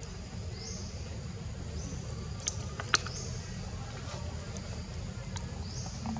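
Forest ambience: a short high rising call repeats about once a second over a steady low rumble. A few sharp clicks stand out, the loudest about three seconds in.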